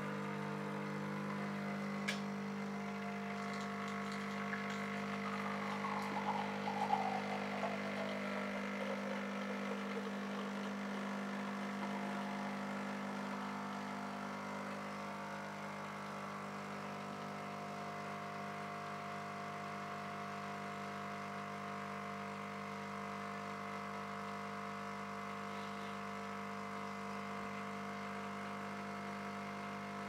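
A Nescafé Dolce Gusto Genio S pod machine's pump runs with a steady hum as it forces hot water through a milk capsule, and milk streams into a glass mug. A fainter tone slides downward over the first half.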